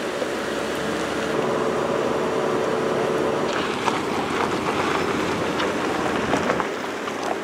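An SUV's engine running with tyres rolling over a gravel track, against a steady rushing noise; the engine hum fades about three and a half seconds in, after which scattered clicks and knocks come through.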